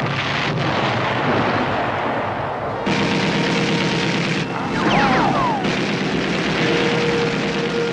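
Film sound effects of a machine gun firing long, rapid bursts, loudest from about three seconds in until past five seconds, over steady noise. A few short falling whines sound about five seconds in.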